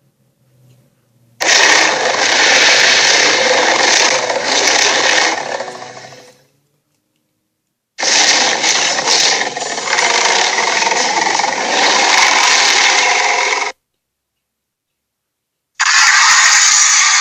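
Three separate harsh, noisy sound-effect clips, each starting abruptly. The first fades out over about a second, the second cuts off sharply, and the third starts near the end.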